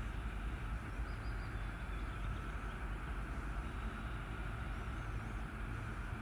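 2TE10UK twin-section diesel locomotive approaching at the head of a loaded freight train: a steady low diesel rumble with a constant hiss.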